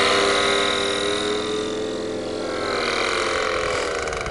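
Paramotor engine and propeller droning, the pitch sagging slowly and the sound fading as the craft moves away.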